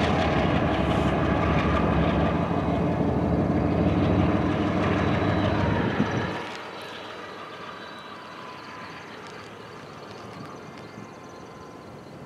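Union Pacific diesel locomotives passing close by: a loud engine and wheel rumble. A little past halfway the last locomotive passes and the sound drops suddenly to a quieter rumble that fades as the train moves away.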